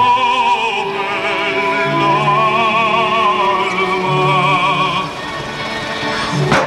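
Music: an operatic voice singing long held notes with wide vibrato over a sustained accompaniment.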